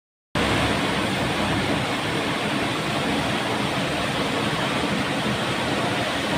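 A loud, steady rush of water, starting abruptly just after the beginning.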